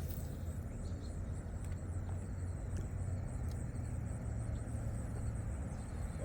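Outdoor ambience: a steady low rumble under a high, pulsing insect trill.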